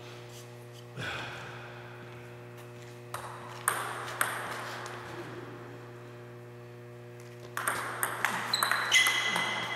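Table tennis ball clicking off rubber paddles and the tabletop. Two single sharp hits come a few seconds in, then a fast rally of clicks starts near the end.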